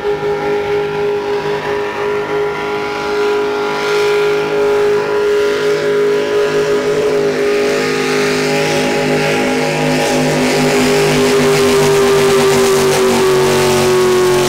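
Racing speedboat engines running flat out, a steady high drone that grows louder as the boats approach, with a rising hiss. The pitch dips slightly near the end as the nearer boat goes past.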